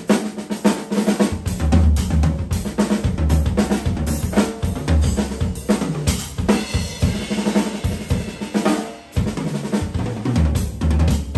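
Tamburo Volume acrylic drum kit with UFIP cymbals being played: a busy run of tom and snare hits over repeated bass drum strokes, with hi-hat and cymbals. The playing drops out briefly about nine seconds in, then carries on.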